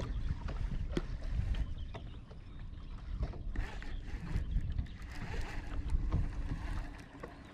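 Bass boat on the water: a low, uneven rumble with a few light knocks.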